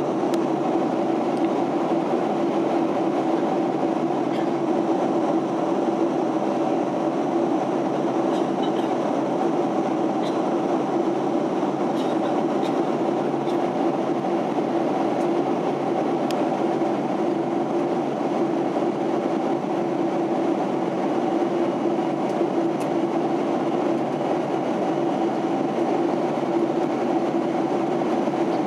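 Steady cabin noise of a Boeing 767-300 airliner in flight, heard inside the cabin: the drone of the engines and the rush of air over the fuselage, with a constant low hum.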